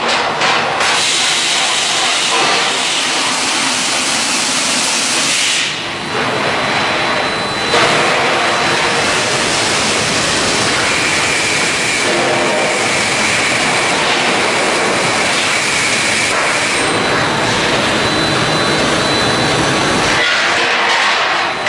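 Guardrail galvanizing line running: a loud, steady hiss with machinery noise underneath. It dips briefly about six seconds in and comes back abruptly near eight seconds.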